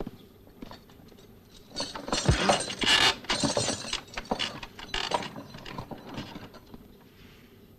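Wooden poles and iron fittings clattering and clanking as a distillery's grain steamer is worked open and unloaded. A dense stretch of knocking and rattling is loudest from about two seconds in to about five seconds, then thins out.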